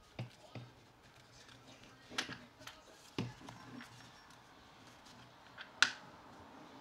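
Scattered clicks and knocks of plastic and metal parts as the 8-inch guide bar and chain are handled and seated on a mini cordless chainsaw's body, about half a dozen in all, the sharpest near the end.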